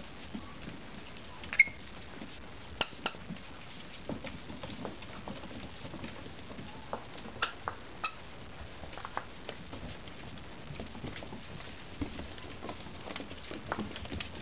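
Mini dachshund puppies scrabbling and tussling on a hardwood floor: scattered clicks and taps of claws and paws on the wood, with one short high squeak about a second and a half in.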